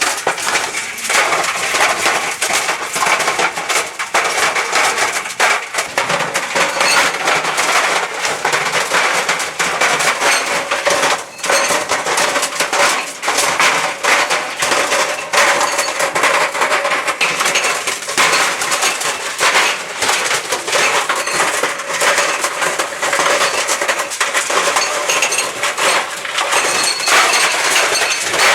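Dell laptop tumbling inside a running clothes dryer: a dense, unbroken clatter of knocks and bangs as it is thrown against the drum, with a faint steady hum underneath.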